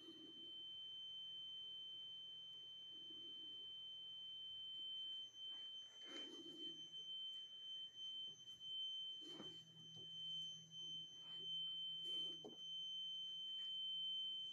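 A carbon monoxide alarm giving a constant high-pitched electronic tone. It is one steady note, not beeps, and it grows louder and softer as the microphone moves about. A few soft thumps come through about six, nine and twelve seconds in.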